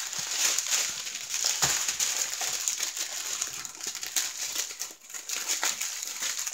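Small plastic bags of diamond painting drills crinkling and rustling as they are handled and gathered up, with scattered clicks.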